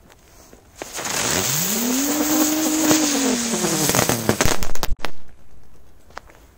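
Golden Dragon 'rose' ground-spinner firecracker going off: a loud hissing rush starts about a second in, with a tone that rises and then falls in pitch. It ends in a few sharp crackles and a bang about five seconds in.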